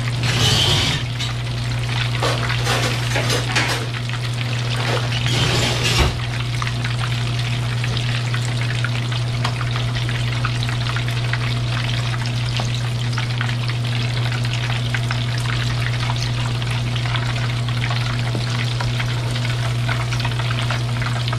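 Hot oil crackling and sizzling as breaded chicken croquettes deep-fry in a saucepan, with a few louder rushes in the first six seconds as a slotted spoon stirs them. A steady low hum runs underneath.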